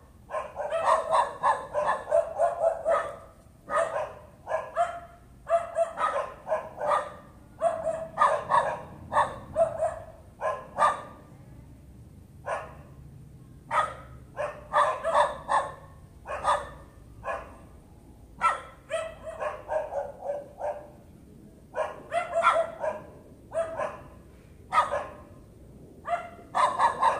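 A dog barking over and over in quick runs of sharp barks, with short pauses between the runs: the persistent nuisance barking that a neighbour complains of.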